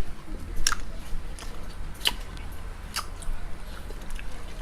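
A person chewing chili-coated mango candy close to the microphone, with a few sharp, wet mouth clicks about a second apart.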